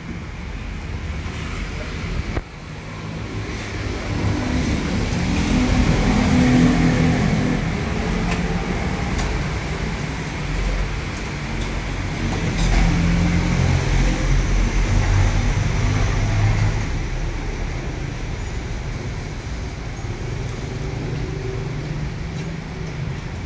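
Road traffic rumbling past, swelling twice as vehicles go by, with a few sharp knocks of a cleaver chopping chicken on a wooden chopping board.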